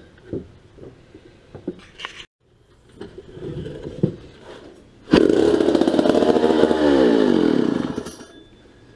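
Vintage McCulloch 300 87cc chainsaw being pull-started: clattering from the saw and starter first, then about five seconds in the engine fires. It runs for about three seconds, its pitch sagging, and dies, as this saw does when it isn't kept choked.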